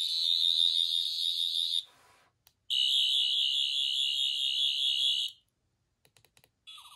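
Sonic screwdriver replica's electronic sound effect, played from an 11th Doctor (Matt Smith) sonic screwdriver sound chip: a high warbling whir in two bursts of a few seconds each with a short break between them. A few faint clicks follow, and a different, lower warbling buzz starts near the end.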